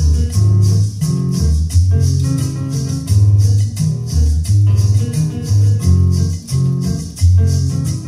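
Music with a bass line, guitar and a steady shaker, played loud through a Cerwin-Vega Intense PA speaker cabinet whose small stock compression driver has been swapped for a larger EAW driver.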